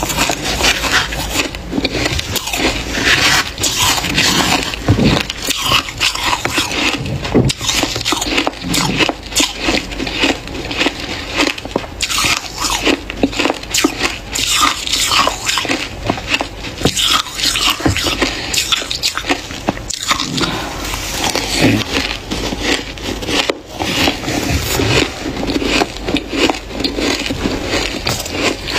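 Freezer frost being eaten: a dense, continuous run of crisp crunches and crackles as mouthfuls of the packed ice are bitten and chewed, mixed with the spoon scraping through the frost in the bowl.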